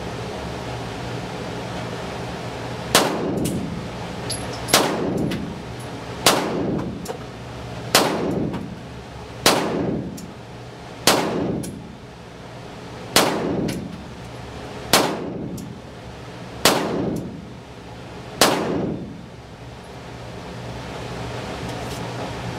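Ten single shots from a Beretta 92FS Compact L INOX 9mm pistol firing 115-grain full metal jacket rounds, slow-fired about one every one and a half to two seconds, each shot echoing briefly.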